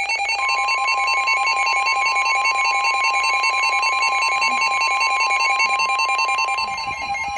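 Emergency Alert System warning tones for a severe thunderstorm warning: a rapid pulsing electronic beeping, joined about half a second in by a steady, unbroken high alert tone that holds on.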